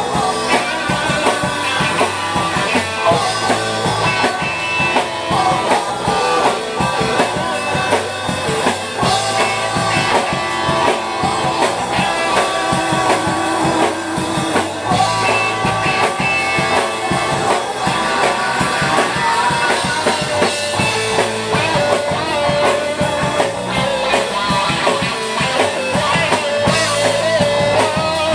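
Live rock band playing: electric guitars through amplifiers over a drum kit, with a man and a woman singing together at the start.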